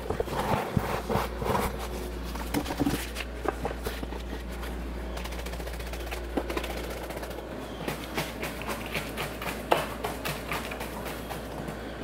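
Castable refractory being tipped from a bucket into a furnace mould and then rammed down with a wooden ramrod: irregular knocks and scrapes at first, then about six seconds in a run of dull, repeated strikes, a few a second.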